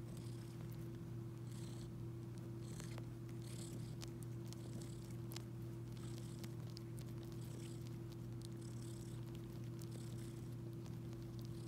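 Kitten purring steadily while suckling on a shaggy fur rug, with small clicks and soft rustles recurring about once a second as it nurses on the fur.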